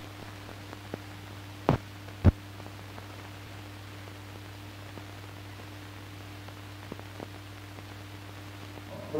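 Surface noise of an old film soundtrack running over blank leader: a steady hiss with a low hum, a few faint clicks, and two sharper pops about two seconds in.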